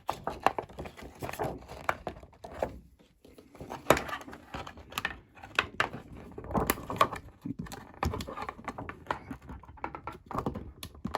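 Clear plastic visor sheet being handled and flexed onto a 3D-printed face shield frame: irregular crackling, rustling and sharp clicks, with a few louder clicks from about four seconds in.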